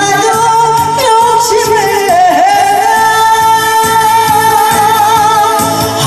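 A woman singing a Korean trot song into a microphone over an amplified backing track. Her melody moves for the first couple of seconds, then she holds one long note through the second half.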